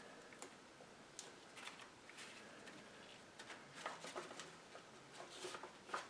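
Faint, scattered clicks and rustles of hands handling engine parts, busier in the second half with the sharpest click near the end.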